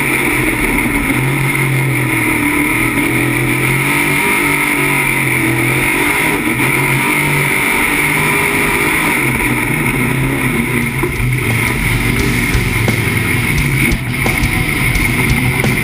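Jet sprint boat engine running hard at racing speed, with rushing wind and water, steady throughout.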